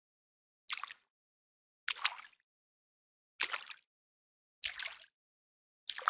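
A series of separate water splashes, five in all, about one every second and a bit. Each is sharp at the start and dies away within half a second, and the last comes right at the end.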